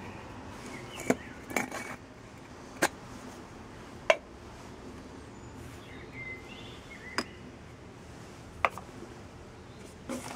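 Sharp clicks and knocks, about seven at irregular intervals, as small hard orgonite pieces (resin cast with metal shavings) and aluminium tubes and cups are picked up, handled and set down against each other; the loudest comes about four seconds in.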